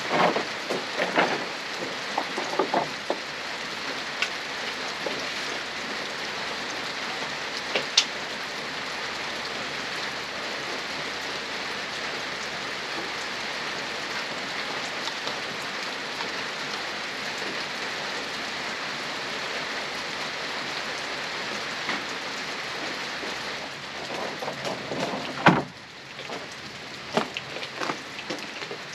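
Steady rain falling, a continuous even hiss. A few sharp knocks come in the first few seconds, and a loud knock near the end, after which the rain sound is quieter.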